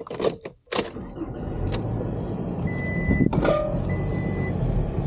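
Inside a pickup truck: two sharp clicks near the start, then the truck running steadily, with a short high warning chime beeping about once a second.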